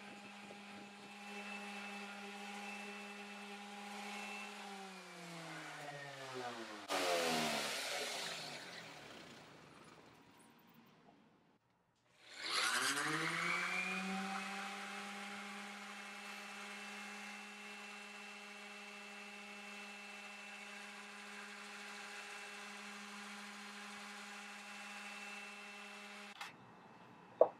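Electric random orbital sander running at a steady hum, then winding down with falling pitch about four seconds in, with a short louder rush of noise as it slows. It is started again around twelve seconds in, spins up with rising pitch, runs steadily, and cuts off about a second before the end, followed by a couple of sharp clicks.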